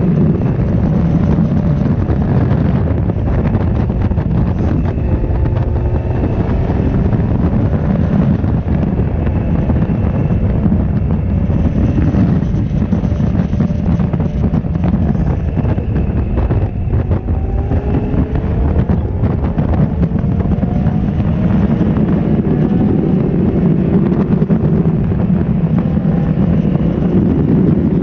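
Honda CB1300's inline-four engine running hard at speed, with wind buffeting the microphone; its pitch rises several times in the second half as it pulls.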